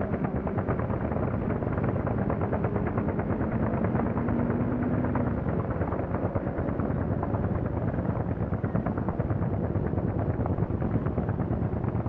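Several farm tractors running together while plowing, a dense, rapid chugging rattle with no let-up, on a muffled early sound-film recording.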